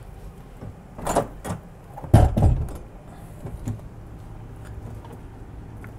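A door on the yacht being opened and shut, with a few knocks about a second in and the loudest, heavy thud just after two seconds in.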